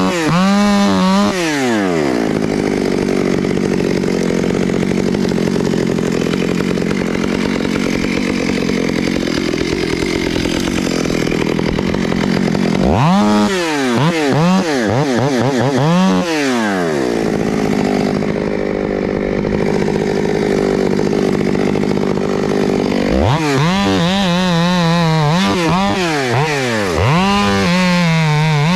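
Chainsaw at full throttle cutting into a tree trunk, its engine note pulled down and steady under load. Twice, about halfway through and again near the end, the engine revs up and down repeatedly as the saw is worked in the cut or eased out of it.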